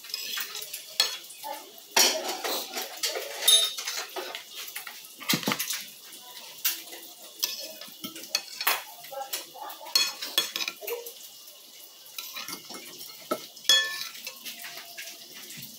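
A metal spoon clinking and scraping against a glass bowl of cuscuz with milk, in irregular clinks as bites are scooped up, with close-up chewing between them.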